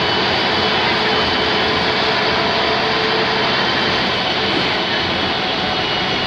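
Ikarus 260 city bus under way, heard inside the passenger cabin: its diesel engine runs steadily under the noise of tyres and cabin rattle, with a thin high whine.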